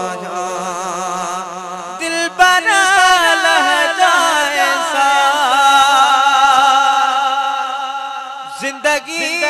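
A male voice singing a Sindhi naat, holding one long ornamented phrase with a wavering pitch from about two seconds in until near the end. A low steady drone under the voice stops within the first second.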